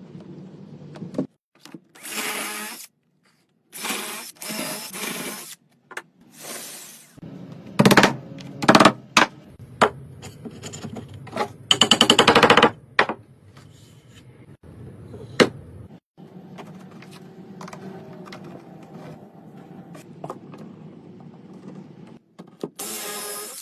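A run of workshop tool noises: several short power-tool bursts, a few sharp knocks, and a rapid rattling burst about twelve seconds in, followed by a lower steady machine hum.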